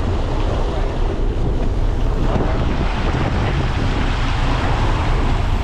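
Steady rush of wind across the microphone and water churning alongside a moving sportfishing boat, with the boat's engine running low underneath.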